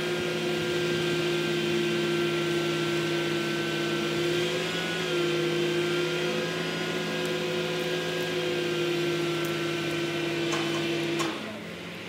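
Heavy truck-mounted engine running steadily at raised revs, with a slight shift in pitch about five seconds in, then dropping back about eleven seconds in.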